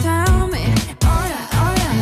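Pop music with a steady beat and a sung vocal melody.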